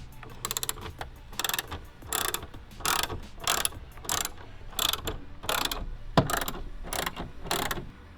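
Socket ratchet wrench being worked back and forth to back out a bolt, a quick run of clicks on each return stroke, roughly every two-thirds of a second, stopping near the end.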